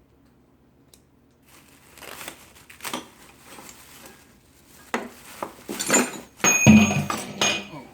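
Rustling and crinkling of packing, then a heap of old steel wrenches clattering and clinking together as they are handled. The loudest is a heavy clatter with metallic ringing about seven seconds in.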